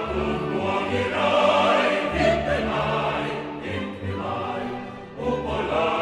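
Background choral music with sustained chords.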